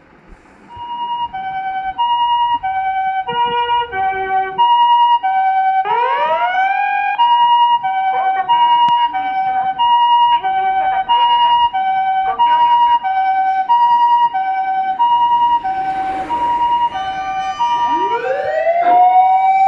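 Emergency vehicle sirens sounding for a routine check: a Japanese ambulance's two-tone hi-lo siren alternating steadily between two pitches. A wailing siren winds up over it about six seconds in and again near the end, rising and then holding its pitch.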